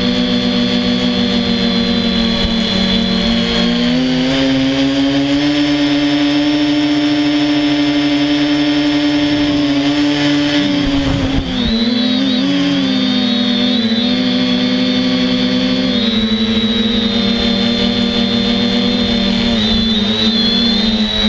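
Quadcopter's electric motors and propellers buzzing loudly, heard from the camera carried on the craft. The pitch shifts with the throttle: it steps up about four seconds in, drops briefly about eleven seconds in, then wavers up and down.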